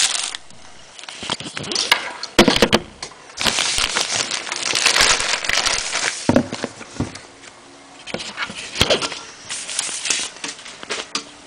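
Thin plastic bag crinkling and rustling in irregular spells as a boxed iPad is pulled out of it by hand, with a few sharp knocks from handling the box.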